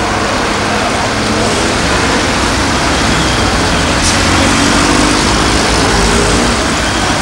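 Steady rumble of a heavy vehicle's engine running, with the hiss of a fire hose jet splashing onto the ground.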